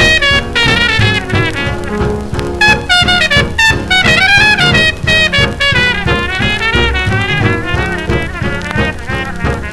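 A small band playing an instrumental break between sung verses: a lead melody line with vibrato over a steady, regular beat.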